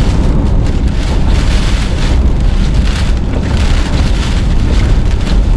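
Hurricane eyewall wind with driving rain, blowing hard and steadily in surging gusts and buffeting the microphone.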